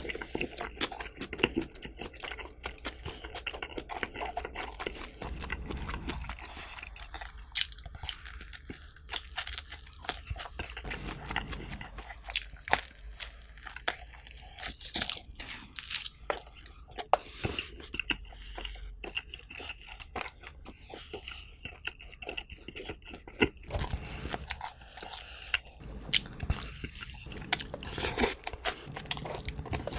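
Close-miked chewing and biting of pizza, with many irregular crunches and wet mouth clicks.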